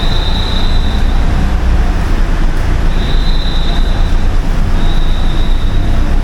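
Steady low rumble of car and road noise, with a thin high tone that comes and goes several times.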